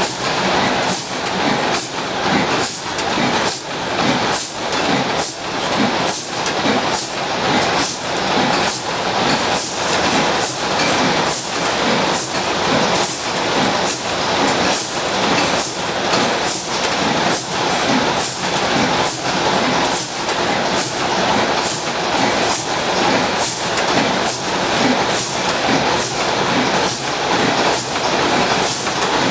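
Gardner horizontal single-cylinder stationary engine running slowly, with a sharp, even beat about once a second over a steady mechanical clatter.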